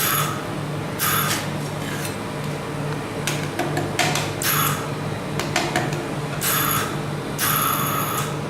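Metal spatulas scraping across the frozen plate of a rolled ice cream maker in about six separate strokes, with a few sharp taps. A steady low hum from the machine runs underneath.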